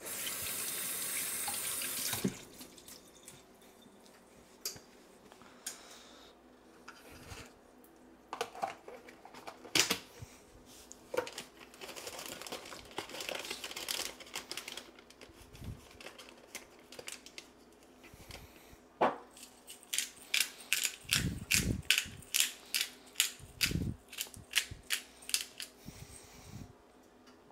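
A kitchen tap runs for about two seconds, then stops. Scattered clicks and a few dull knocks follow, and near the end comes a fast run of sharp clicks, about three a second.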